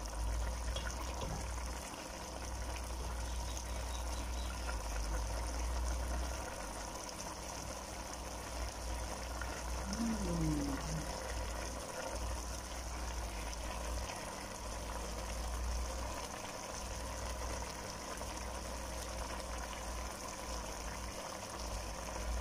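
Pot of chicken caldereta simmering, a steady quiet bubbling hiss, with a low hum underneath that drops in and out.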